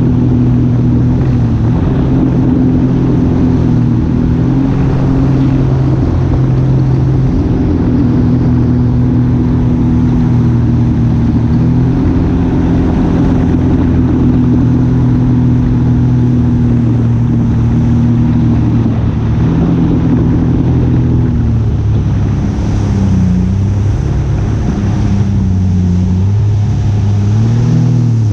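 Engine running steadily under load, its pitch wavering up and down over the last few seconds.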